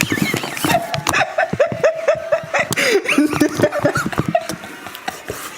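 People laughing in short, rapid bursts, dying down near the end.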